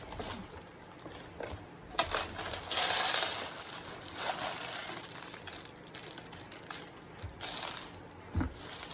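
Plastic packaging crinkling and crackling in bursts as it is handled and opened, with a few sharp clicks.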